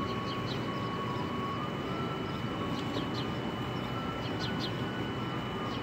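Steady outdoor street noise, with a few faint bird chirps now and then.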